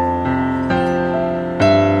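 Background piano music, with notes and chords changing about every half second.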